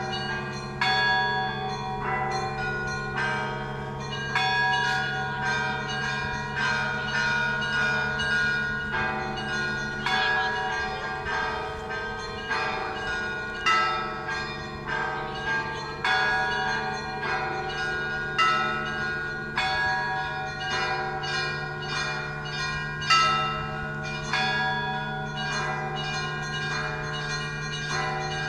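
Russian Orthodox church bells rung by a bell-ringer: small bells struck in a fast, continuous rhythmic pattern over the steady hum of the larger bells, with heavier accented strokes every few seconds.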